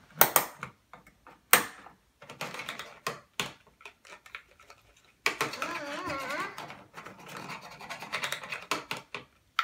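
Sharp plastic clicks and taps as toy kitchen pieces are handled and pressed. From about five seconds in, a few seconds of a wavering, bubbly electronic sound: the toy stove's burner, just switched on, playing its cooking sound effect.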